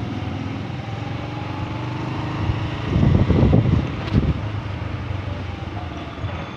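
Small motorbike's engine running while riding slowly, with wind noise on the microphone. A louder low rumble swells briefly about three seconds in.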